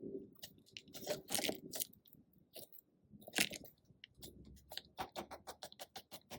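Peanut-shaped squishy toy squeezed and kneaded by hand, giving irregular soft crackles and squishes that turn into a quick run of small clicks in the last couple of seconds.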